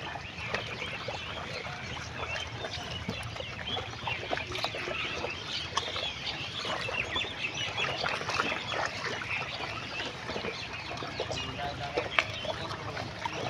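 A herd of black pigs feeding in shallow, weed-covered pond water: a dense, steady crackle of chewing and splashing, with short high chirps mixed in.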